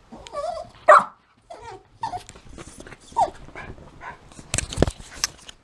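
Jack Russell terrier giving short whines and barks, the loudest about a second in, followed by a few sharp knocks near the end.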